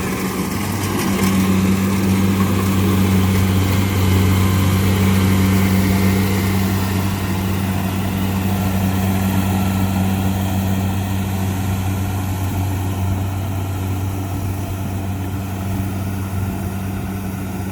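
Kubota DC-70 combine harvester's diesel engine running steadily while cutting rice through a flooded paddy, a deep hum that swells over the first few seconds and then slowly fades.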